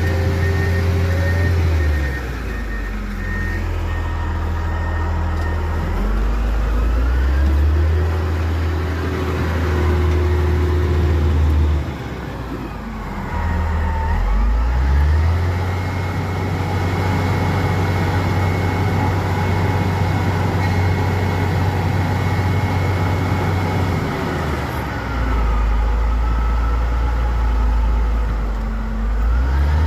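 A motor vehicle's engine revving repeatedly: the revs climb, hold high for several seconds, then fall back, about three times over.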